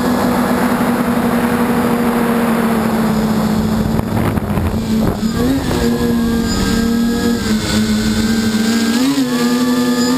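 A small multicopter's electric motors and propellers whine steadily, heard up close from the camera on board, with a rushing noise over them in the first half. Around the middle the pitch of the motors shifts, and near the end it briefly rises and falls again as the throttle changes.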